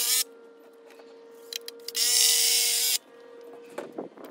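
Cordless drill driving screws down through a cedar rail into a fence post: one run ends just after the start, and a second run of about a second comes near the middle, with a few light clicks between.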